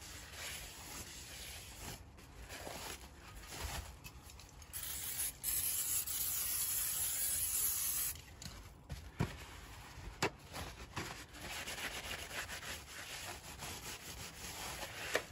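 Kitchen roll rubbing over a new drilled and grooved brake disc, wiping it clean. About five seconds in, an aerosol can of brake cleaner sprays with a steady hiss for about three and a half seconds, then cuts off.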